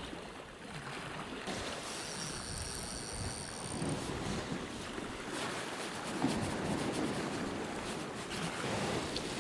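Sea waves washing over shoreline rocks, swelling and falling back in several surges.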